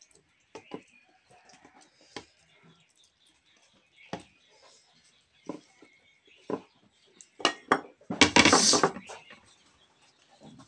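Ceramic and steel plates knocking and clinking while food is scraped by hand from one plate onto the other, with a louder scrape about a second long around eight seconds in.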